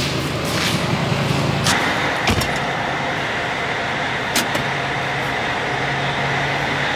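Truck engine running steadily, with three sharp metal clanks. A little under two seconds in, the low hum drops and a steady high whine comes in.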